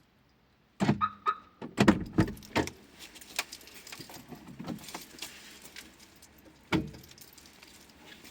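Handling noises: a quick run of knocks and clicks with a brief jingle starts about a second in, followed by a faint steady hiss and one more knock near the end.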